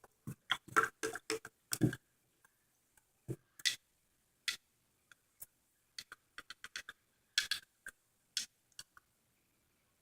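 Crunchy slime with beads being squeezed and worked by hand, giving irregular sharp clicks and crackles in clusters.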